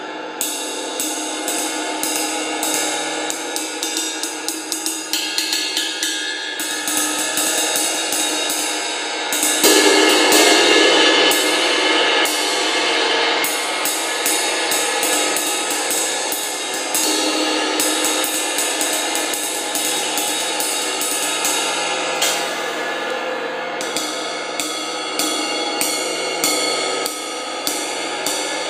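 A 1960s 24-inch Avedis Zildjian ride cymbal played with a drumstick in a steady ride pattern, several stick strokes a second over a continuous shimmering wash. It is struck harder from about ten to twelve seconds in, where the wash swells louder and fuller.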